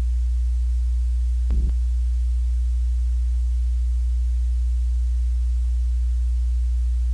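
Loud, steady, low-pitched electronic drone, a sine-like hum that holds unchanged, broken once about a second and a half in by a brief glitchy burst.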